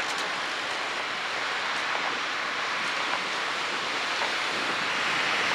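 A steady outdoor rushing hiss, growing slightly louder near the end.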